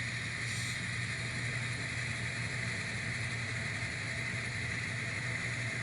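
N scale NS SD70ACe model locomotive running slowly over the track: a steady, even motor hum with the faint whir of its drive and wheels.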